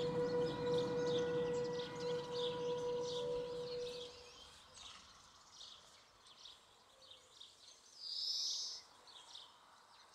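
A single long, steady held tone that stops about four seconds in, over birds chirping; a brief louder burst of chirping comes near the end.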